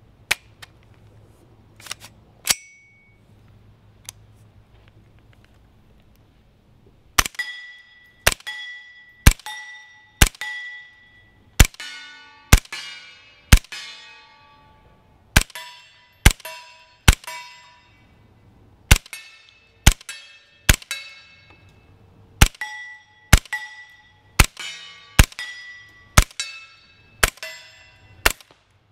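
Suppressed FX-9 9mm carbine firing about twenty shots, roughly one a second in short strings. Each shot is followed by a ringing clang, like a struck steel target. A few sharp clicks come in the first few seconds before the firing starts.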